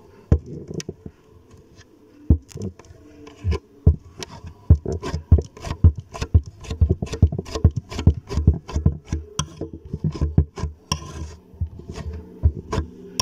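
Small metal palette knife tapping, pressing and smearing soft modelling clay on a hard surface: irregular sharp taps with soft thuds, about two to three a second, and a brief scrape near the end.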